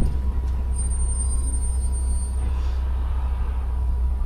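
Open-air safari ride truck rumbling steadily as it drives along, heard from on board.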